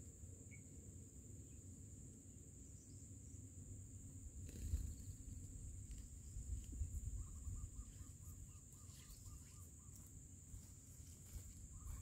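Faint outdoor ambience: a steady high-pitched insect drone over a low rumble, with a short, fast trill of chirps about seven seconds in.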